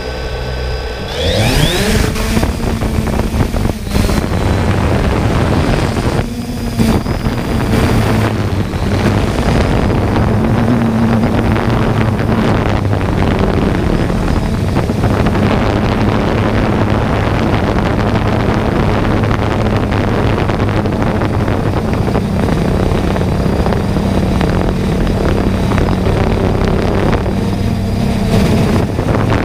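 3DR Solo quadcopter's four electric motors and propellers spinning up in a rising whine about a second in as it lifts off, then a steady loud buzz in flight. It is heard from the GoPro camera on the drone's own gimbal, close to the propellers.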